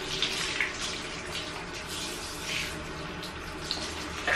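Handheld shower head spraying water onto a small dog's wet, soapy fur, rinsing off the shampoo: a steady spray with irregular splashes as the water runs through the coat.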